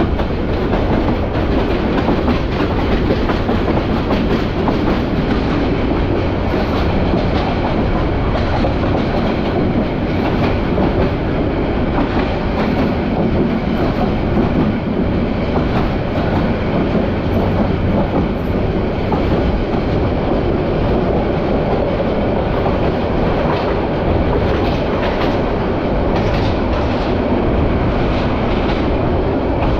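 Agnibina Express passenger train running along the track, heard from a carriage window: a steady rumble and rattle of the moving train, with wheel clicks over the rail joints, more of them in the later part.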